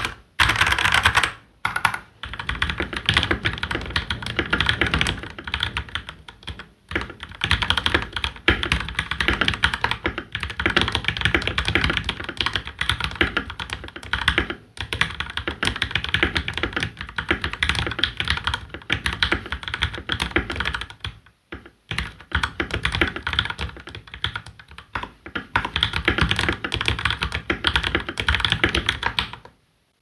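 Continuous fast typing on a Royal Kludge RK R87 mechanical keyboard, first with its stock RK Red linear switches and, partway through, with factory-lubed Gateron Yellow Pro linear switches. The typing is broken by a few short pauses.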